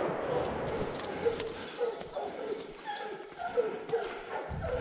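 A pack of Fauve de Bretagne hounds giving tongue on a roe deer's trail: several dogs baying in short repeated calls that overlap. A couple of low thumps come near the end.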